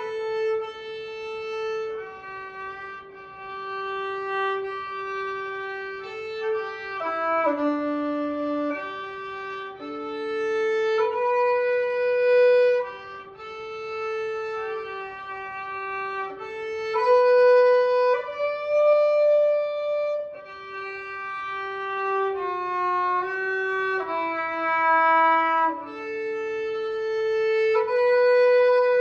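Instrumental background music: a slow melody of held notes that change every second or so.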